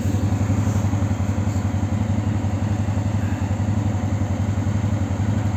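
ATV (quad bike) engine idling steadily, with an even low throb.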